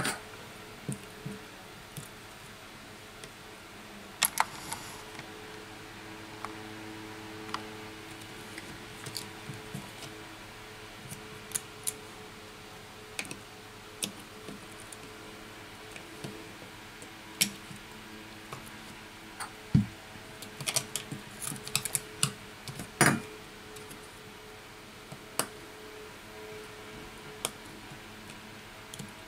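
Scattered small clicks and taps as a smartphone logic board and its connectors are handled and pressed into the phone's housing. A denser run of louder clicks comes a little past the middle, over a faint steady hum.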